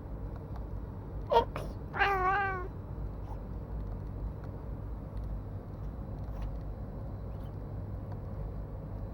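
A brief sharp sound about a second and a half in, then a black cat answers with a single meow of under a second, its pitch wavering.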